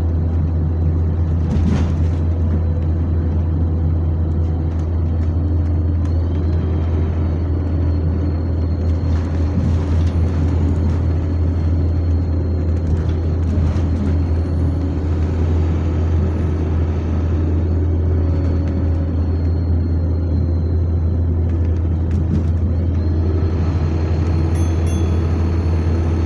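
Steady loud drone of a London bus's engine and cooling fan, heard from inside the passenger saloon, with a strong low hum under it. A faint high whine rises and falls a few times over it.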